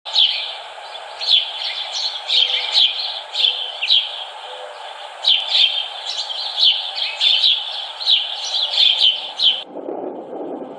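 Birds chirping, short high calls coming in quick irregular runs over a steady background ambience. The chirping cuts off suddenly near the end, replaced by a lower, duller ambience.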